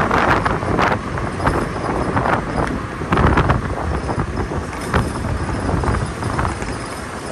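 Wind buffeting the microphone on a moving Suzuki scooter, in irregular gusts over the steady rumble of the scooter's motor and tyres on the road.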